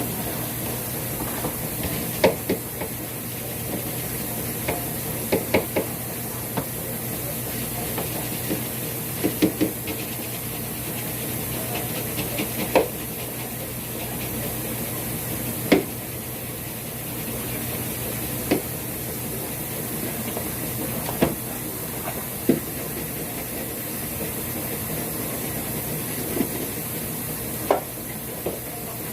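Scattered knocks and clicks, at irregular intervals, of things being handled and set down while a refrigerator is cleaned out with bleach water and a brush, over a steady hum and hiss.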